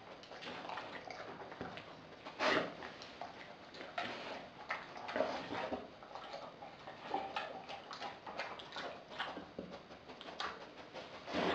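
A pitbull, German shepherd and chow chow mix dog eating raw food from a glass bowl: irregular wet smacking and chewing with small clicks, louder about two and a half seconds in and again near the end.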